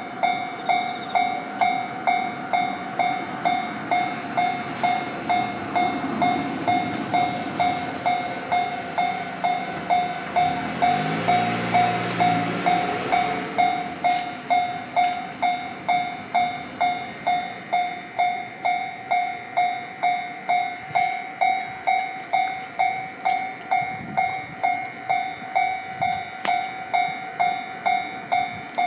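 Japanese level-crossing warning bell ringing steadily, an electronic ding repeating about twice a second. From about ten seconds in, a train passes over the crossing with a rising and falling rumble, and the bell goes on ringing throughout.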